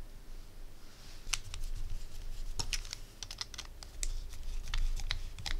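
Small metal kit parts clicking and ticking against needle-nose pliers and a precision screwdriver as a tiny machine screw is fitted through a small metal gear. The clicks are irregular and sharp, starting about a second in, over a low handling rumble.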